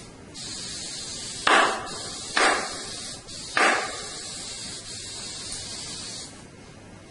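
Staple gun firing three sharp shots into a pool table rail, about a second apart, as the cloth is fastened down, over a steady high hiss.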